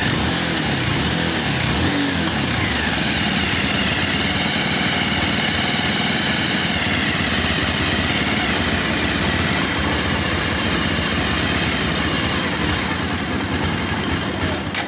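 Bajaj Pulsar 220F's single-cylinder engine running at idle while its carburettor idle setting is being adjusted, after jet cleaning for a missing, hunting idle at low rpm.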